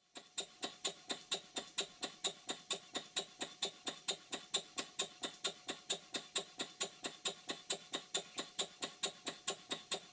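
Stuart 5A model steam engine running slowly on low-pressure compressed air, its exhaust beats coming as an even train of light clicks about five times a second.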